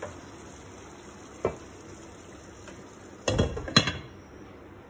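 Chicken masala sizzling gently in a pot, with a single knock about a second and a half in, then a glass lid clattering onto the metal pot twice near the end.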